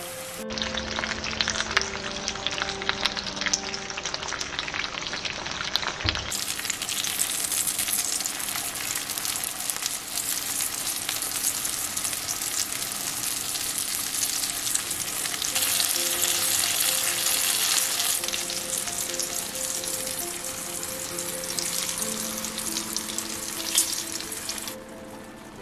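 Guanciale and tomato slices frying in hot oil in a nonstick pan: a steady sizzle with dense crackling that falls away just before the end.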